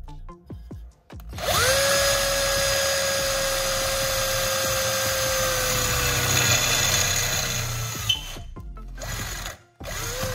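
Electric drill motor spinning up quickly, running steadily for about six and a half seconds with its pitch sagging slowly, then switched off; a short blip of the motor follows near the end.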